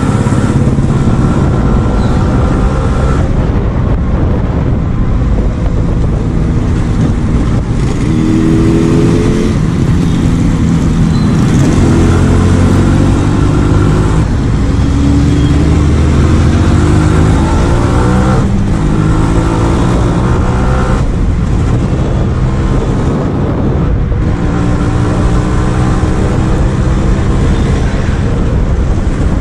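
Yamaha RX 135's single-cylinder two-stroke engine pulling the bike along on the move, its pitch climbing in several runs as it revs up through the gears, each run broken by a brief dip.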